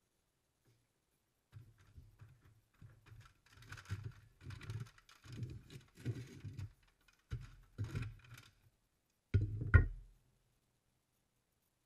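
Handling noise from a red-hot knife blade held in steel blacksmith tongs: irregular knocks and rustles for several seconds. About nine and a half seconds in comes a pair of loud metal clanks as the tongs are set down on the bench.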